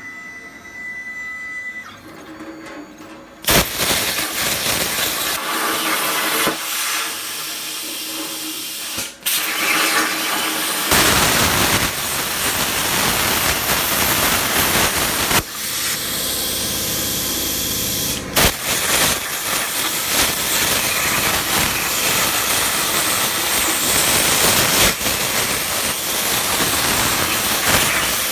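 Razorweld 45 plasma cutter running a machine torch at about 32 amps on 16-gauge sheet: a loud hiss of air and arc starts suddenly about three and a half seconds in. It runs on steadily, changing in tone a few times, with a short drop-out near the ninth second.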